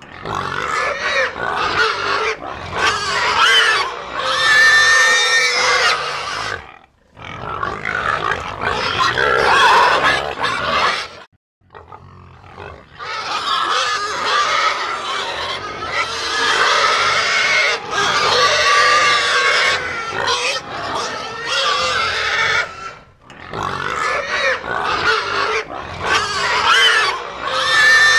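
Animal call sound effects: long runs of calls with wavering pitch, broken by short pauses about 7, 11 and 23 seconds in.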